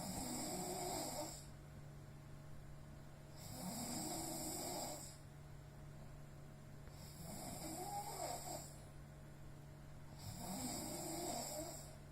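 Sleeping person snoring, four long snores spaced about three and a half seconds apart.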